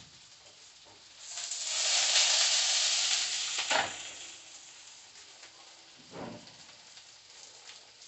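A hot frying pan on the stove sizzling: the sizzle swells up about a second in, holds loud for a couple of seconds, then dies away. A short knock sounds near the middle.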